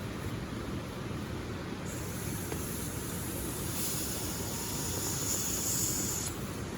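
Steady rushing of a river and waterfall mixed with rain. A brighter hiss comes in about two seconds in and drops out shortly before the end.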